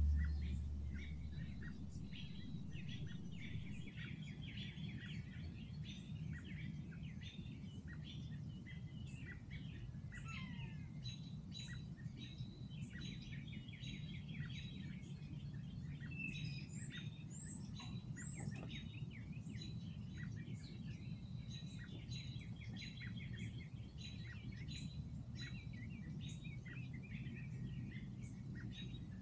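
Many small birds chirping and calling throughout, short notes with a few rising whistles, over a steady low background hum.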